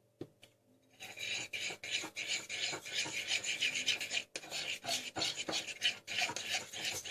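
Glue and red gouache paint being stirred on a plate: quick, repeated scraping and rubbing strokes of the stirring utensil against the plate. The stirring starts about a second in, with a brief break a little past the middle.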